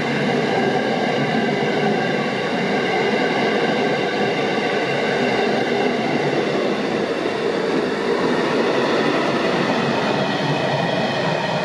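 Train running steadily on the track: a continuous rumble of wheels and rails with several steady high tones over it.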